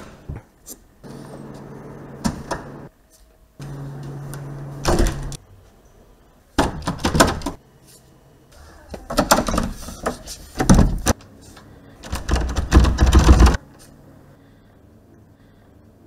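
A door's lever handle clicks as it is pressed, the door being locked, followed later by several loud bursts of rattling and banging at the door, the loudest near the end. Two stretches of steady low hum come in between early on.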